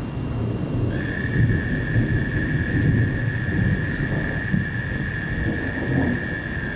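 Thunder rumbling low and unevenly through a storm, over a faint hiss. A steady high-pitched whine comes in about a second in and holds.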